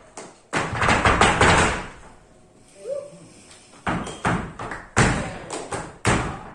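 Flamenco footwork (zapateado): a fast rattling roll of shoe strikes on the stage, then after a pause several single hard stamps in the second half.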